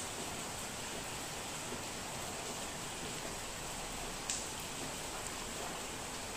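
Steady rain falling as an even hiss, with a single sharp tick of a drop about four seconds in.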